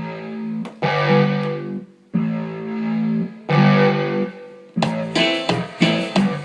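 Korg X3 synthesizer keyboard playing three long held chords, then from about five seconds in a run of short, quick repeated chords.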